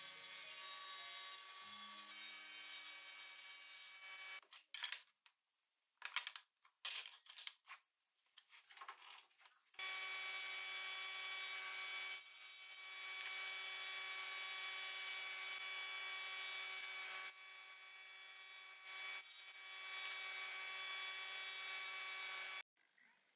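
Table saw running with a steady whine while wood is fed through the blade. Partway through come several seconds of sharp knocks and clatter as wood is handled; then the saw runs steadily again and cuts off suddenly near the end.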